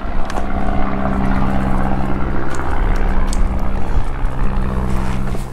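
Light propeller aircraft droning overhead, a steady engine note that cuts off suddenly at the end.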